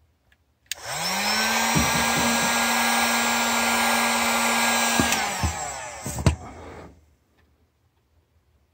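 Electric heat gun on its low setting, shrinking heat-shrink tubing over a butt joint in a fibre-optic light cable. It clicks on just under a second in, its fan motor spins up to a steady blowing hum and runs about four seconds, then it is switched off and winds down, with a sharp knock as it stops.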